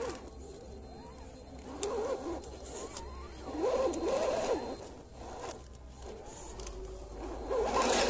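RC scale crawler's electric motor and gears whining in short throttle bursts that rise and fall in pitch, with clicks and scraping from rocks under the tyres. Near the end comes a louder clatter as the truck tips over onto its side on the rocks.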